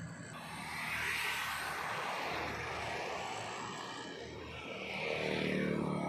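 Road traffic driving past: the noise of passing vehicles swells about a second in and again near the end, with an engine hum on the second pass.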